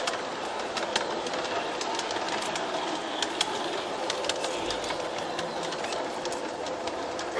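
G-gauge garden-railway model train running on outdoor track: a steady running hiss with many small irregular clicks of the wheels over the rail joints.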